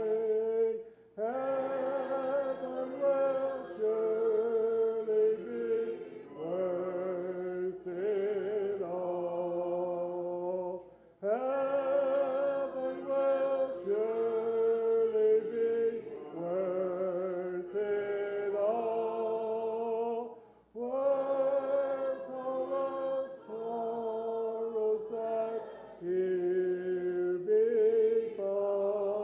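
Church congregation singing a hymn a cappella, voices without instruments holding long notes in phrases of a few seconds, with brief breaks for breath between lines.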